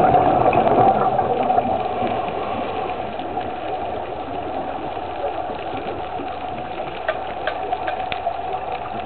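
Underwater ambience picked up by a camera in its housing: a steady mechanical hum over a rush of water noise, slightly louder in the first second or so, with a few faint clicks in the second half.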